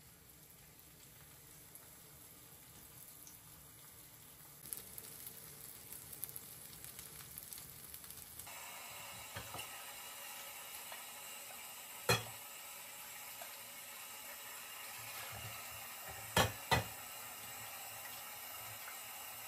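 Syrniki faintly sizzling and crackling as they fry in oil in a pan. About eight seconds in, a kitchen tap runs steadily into a sink while a glass bowl is rinsed, with three sharp knocks as the bowl touches the dishes, the last two close together.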